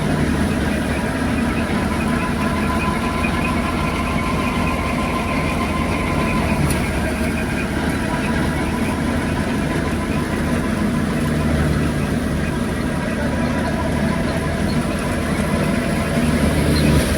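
A machine's engine running steadily, with a low hum and a faint steady whine, typical of the engine-driven machinery used for threshing or milling wheat.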